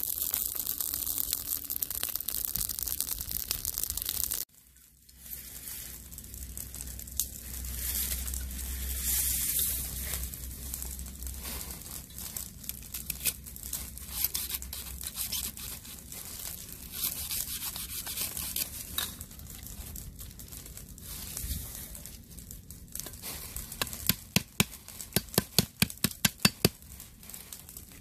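Charcoal-and-wood fire crackling under a wok for the first few seconds. After a cut, a cleaver cuts and splits lemongrass stalks on a wooden block, with tearing and crunching of the fibrous stalks. Near the end comes a quick run of about a dozen chops, roughly four a second.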